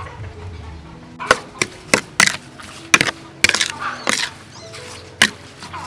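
Irregular sharp wet slaps and clicks from a bowl of small eel-like fish being worked in their seasoning, starting about a second in and coming in quick clusters, over faint background music.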